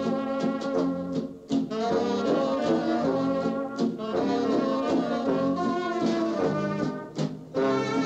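Czech-Texan polka orchestra playing a brass-led dance tune, played back from an 8-track tape. The band stops for a short break about a second and a half in and again near the end.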